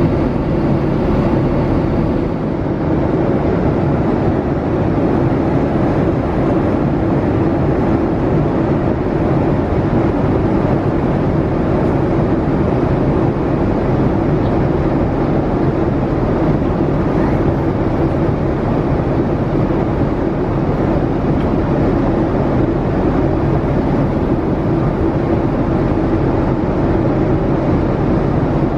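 Steady cabin noise of a Boeing 787-8 airliner in cruise: a constant rush of engine and airflow noise with a low, steady hum underneath.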